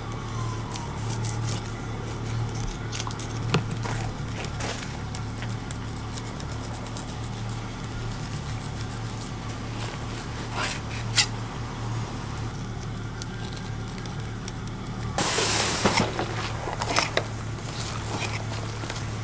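Fillet knife cutting and scraping through a hogfish on a plastic cutting board: scattered soft ticks and scrapes over a steady low hum, with a brief rush of hiss about fifteen seconds in.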